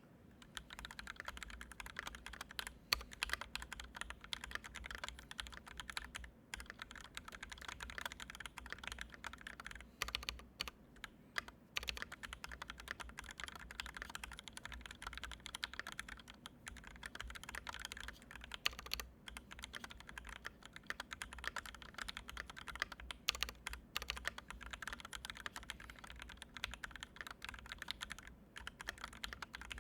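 Steady typing on a Canoe Gen2 mechanical keyboard with Original Aspiration switches, an aluminium plate and GMK Red Samurai keycaps, damped with two extra layers of foam. The keystrokes run in quick clusters, with short pauses about six, eleven and twenty-eight seconds in.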